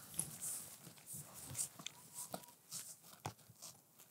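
Faint rustling of dry grass and clothing, with scattered light clicks.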